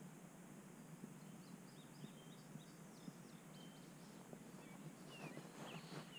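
Near silence: faint outdoor ambience with small birds chirping, a string of short high chirps.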